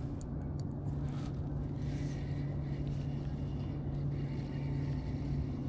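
Boat motor running with a steady low hum, with a few faint clicks in the first second or so.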